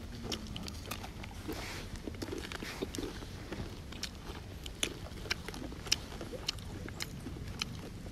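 Mouth sounds of people eating singju salad by hand: soft chewing with a string of small, irregular clicks and smacks.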